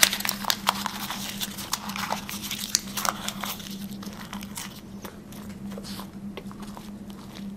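Paper crinkling and being bitten and chewed close to the mouth: rapid sharp crackles that thin out through the second half, over a steady low hum.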